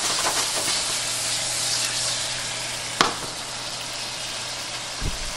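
Shrimp sizzling as they fry in a skillet, stirred with metal tongs, with one sharp clack of the tongs against the pan about three seconds in and a soft low thump near the end.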